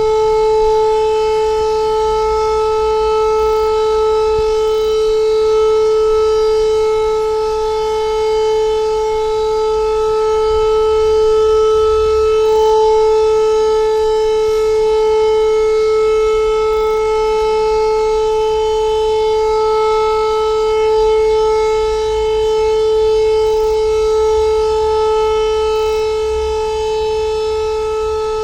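Electric civil-defence siren sounding a steady wail held at one pitch, swelling and easing slightly in loudness. It is the air-raid warning signal, sounded as a test of the public warning system.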